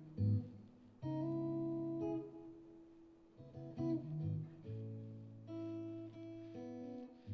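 Background music: guitar chords, each held and ringing for a second or two before the next, over low bass notes.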